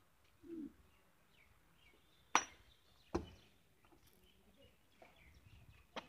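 Two sharp clinks of fired clay bricks knocked together as they are handled, a little under a second apart, with faint bird chirps in between.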